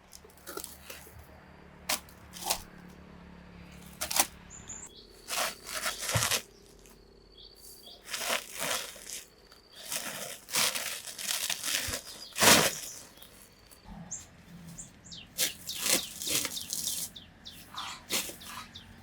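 Irregular rustling and crackling of leaves and twigs being handled, in short bursts that come faster in the second half, the loudest about twelve and a half seconds in.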